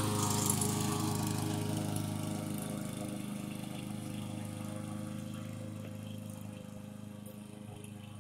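Gas walk-behind lawn mower engine running steadily, growing fainter as the mower is pushed away across the lawn.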